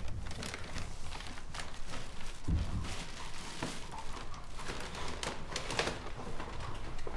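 Scattered rustling, taps and small clicks of a person moving about in a winter jacket and handling belongings, with one dull thump about two and a half seconds in.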